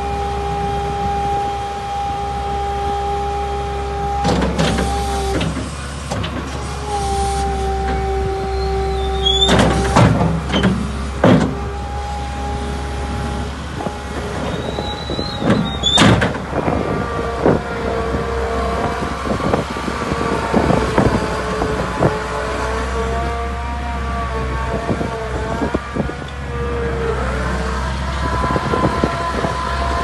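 A TCM SSL 610 skid-steer loader running on its Isuzu diesel engine, with a steady low engine hum. Over it the hydraulics whine on a steady pitch, stopping and starting several times as the loader arms and bucket are worked, with a few sharp clunks. In the second half, as the machine drives, the whine wavers and shifts in pitch.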